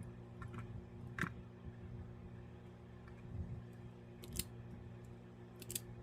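Wire strippers snipping and pulling insulation off wires: a few short, sharp snips, the loudest about a second in, at about four seconds and a close pair near the end.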